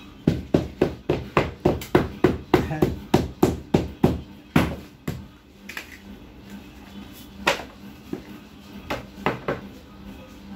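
Quick, even knocks, about three or four a second, of a hand-held black weight pounded down on folded paper to crease envelope folds flat. After about four seconds they stop, and a few single knocks follow.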